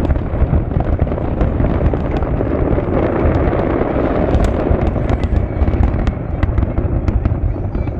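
Fireworks going off in a dense, continuous barrage: a steady rumble of bursts with many sharp crackles and pops over it.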